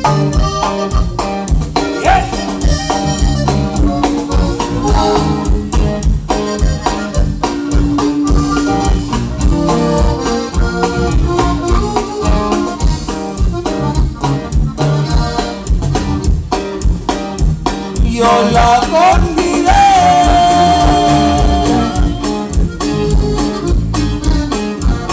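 A live Tejano conjunto band playing an instrumental break, with the accordion carrying the melody over drums, bass and guitar in a steady, even beat. About three quarters of the way through, a long high note is held.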